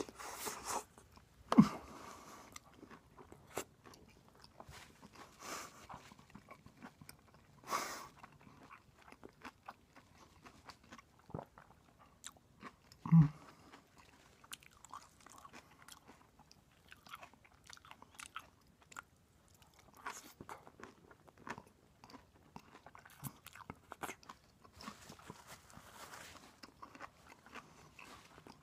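A person biting into and chewing a grilled lobster salad sandwich close to the microphone, with wet clicks and crunches throughout. Two louder knocks come about one and a half seconds in and again around thirteen seconds.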